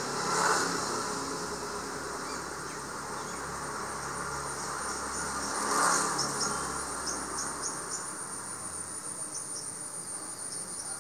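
Insects singing in a steady high-pitched drone, with short chirps repeating in the second half. A rushing noise swells up twice, about half a second in and about six seconds in.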